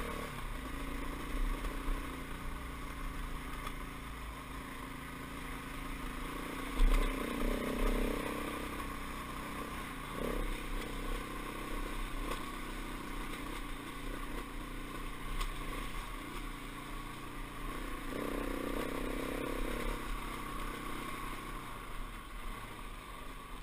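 Dirt bike engine running at low trail speed, the revs picking up for a couple of seconds twice, about a third of the way in and again near the end. A few sharp knocks and clatters from the bike over rocky ground.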